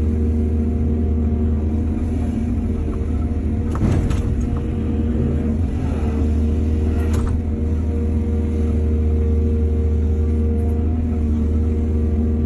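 Excavator's diesel engine running steadily, with a short clatter about four seconds in and a sharp clank about seven seconds in.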